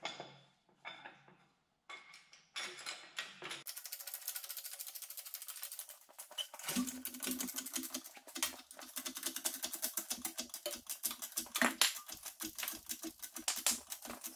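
Cherry picker engine hoist being pumped to lift an engine: a few clanks at first, then about two seconds in a fast, steady run of sharp metallic clicks and rattles, several a second.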